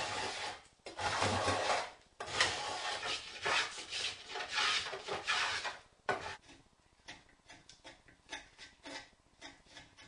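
Spokeshave shaving a wooden canoe paddle blank: long scraping strokes for the first six seconds or so, then shorter, quieter scrapes several times a second.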